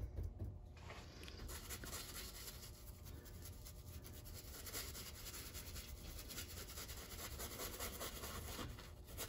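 Flat bristle brush scrubbing and dabbing white paint onto a stretched canvas: a faint, continuous rustle of many small quick strokes.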